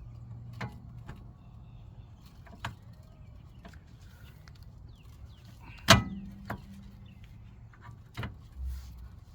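Scattered metal clicks and knocks as a brake caliper is fitted back over new pads, with one loud clank about six seconds in that rings briefly.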